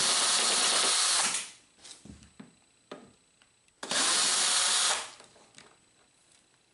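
Cordless drill backing stainless steel screws out of a cooler's hinge, running in two bursts: one of about a second and a half at the start, and one of about a second near the middle. Small clicks and knocks come between and after the bursts.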